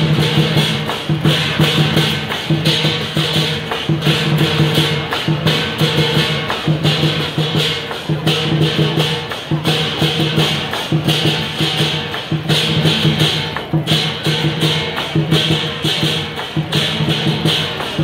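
Lion dance percussion: a large Chinese drum beaten in a fast, steady rhythm, with clashing cymbals ringing over it.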